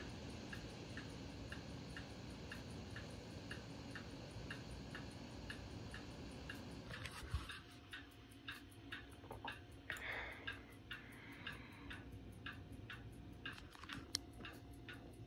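Lenovo ThinkPad T490 cooling fan running steadily at the side vent while the BIOS flashes; the rush drops sharply after a knock about seven seconds in. Faint regular ticking, about three a second, runs throughout.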